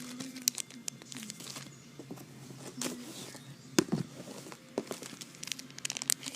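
Crinkling and crackling of plastic packaging being handled, with scattered clicks and a sharper knock about four seconds in.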